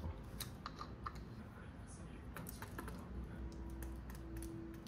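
Light, scattered clicks and taps of kitchen food preparation, hands handling utensils and a mayonnaise bottle. A faint steady hum starts a little past halfway.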